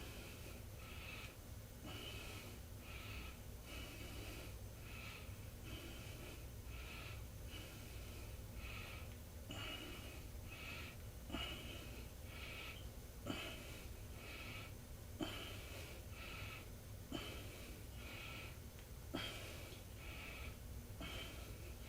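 A person breathing hard in a steady rhythm, about one breath a second, as during exercise. From about halfway through, a faint knock comes roughly every two seconds.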